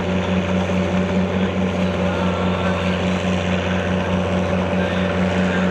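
Antique Oliver farm tractor's engine running steadily at low speed, with an even, pulsing drone.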